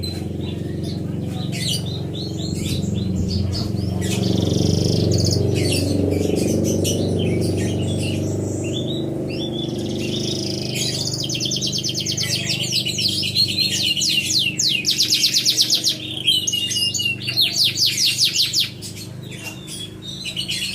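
Domestic canary singing: scattered chirps and short phrases at first, then, about halfway through, long fast trills of rapidly repeated notes with brief breaks. A low steady rumble lies underneath, strongest in the first half.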